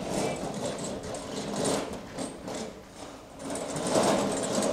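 Empty metal wheelbarrow rattling and clattering as it is pushed over bumpy ground. It dips briefly a little after three seconds in, then gets louder.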